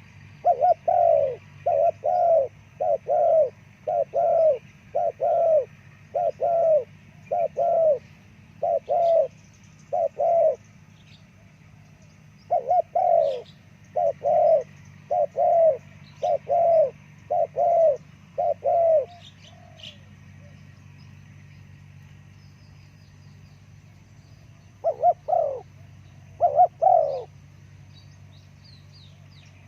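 Spotted dove cooing: a long run of short, paired coos about one a second, a pause of a couple of seconds, a second run, then a few more coos near the end. Faint high chirps of small birds sit behind it.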